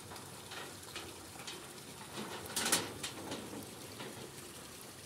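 Water pouring from a pipe into a shallow tank crowded with trout fry, splashing steadily, with a brief louder rush a little past halfway.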